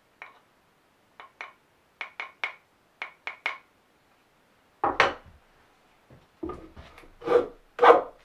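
Small hammer tapping a wooden hand plane to set its blade: about nine short, light taps in pairs and threes. From about five seconds in the plane is pushed along a board edge in about four strokes, each a rasping cut that takes off a shaving.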